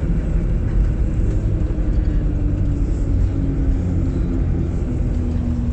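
Steady low rumble of a Boeing 737's jet engines, with a faint tone falling slowly in pitch.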